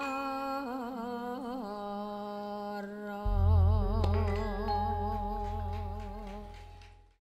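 Javanese gamelan closing a piece: a female singer holds a long wavering final note over the sustained ring of the bronze instruments. About three seconds in the large gong is struck, and its deep, pulsing hum dies away as the music fades out near the end.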